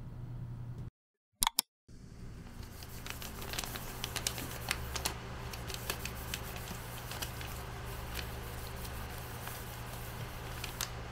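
Irregular light clicks and taps, as of small objects being handled, over a steady low hum. About a second in, the sound drops out briefly, with two sharp clicks.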